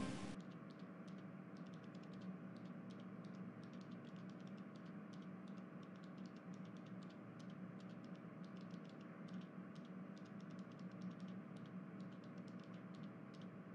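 Faint room tone: a low steady hum with light, irregular ticks throughout, after guitar music fades out right at the start.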